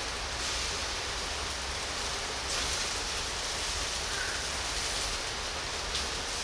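Pork belly sizzling on a charcoal grill: a steady hiss with a few faint pops, over a low rumble.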